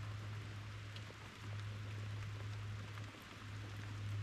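Steady rain falling, an even hiss with scattered ticks of single drops, over a low steady hum that fades out briefly twice.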